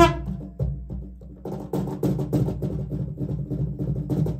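A single sharp strike rings out and dies away at the very start. About a second and a half in, a bamboo didgeridoo comes in with its low drone pulsed into a quick, even rhythm.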